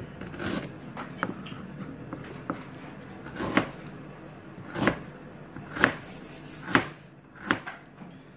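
Kitchen knife slicing through a piece of fresh ginger root and knocking on a plastic cutting board: a few light ticks at first, then five firmer chops about one a second, each with a short scrape just before the knock.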